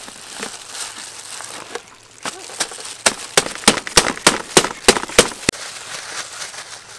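Soft rustling of leaves and plastic-gloved hands handling trays of sticky rice. About two seconds in, an even run of about a dozen sharp clicks or taps follows, roughly three a second.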